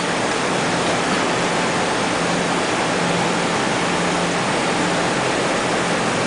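Vacuum frying machine running: a steady rushing hiss, like falling water, with a faint low hum underneath.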